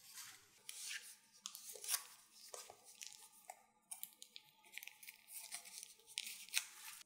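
Foil-covered paper cone crinkling and rustling as it is turned in the hands while a strip of puff pastry is wound around it: a run of irregular soft crinkles and swishes with small sharp clicks.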